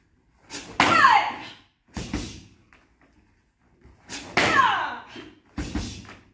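Taekwondo kicks and punches slapping against a hand-held kick paddle and focus mitt: four sharp hits in two pairs, the first hit of each pair longer and with a falling squeal.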